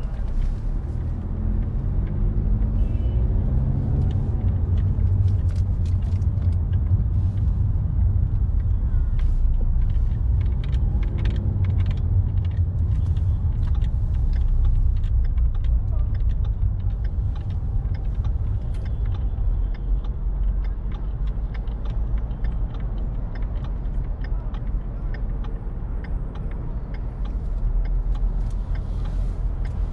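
Car driving through city traffic: a steady low road and engine rumble, with scattered short clicks and knocks throughout.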